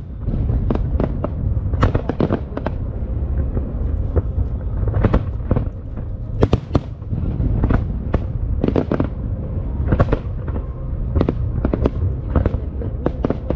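Aerial fireworks bursting in quick succession: many sharp cracks and bangs, often in tight clusters, over a continuous low rumble.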